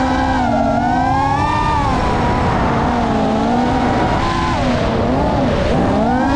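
Geprc Mark 5 FPV quadcopter's brushless motors and propellers whining, the pitch rising and falling as the throttle changes, over a rushing wind noise on the onboard GoPro's microphone.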